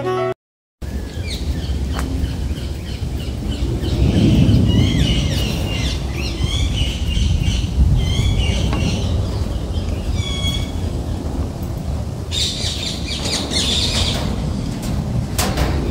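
Songbirds chirping in the tree canopy, a string of short calls with a denser burst of chatter near the end, over a steady low rumble.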